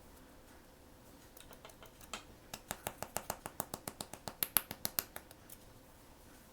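A quick run of small, sharp clicks from handling a blind-box or blind-bag package, about six a second, growing louder and then stopping.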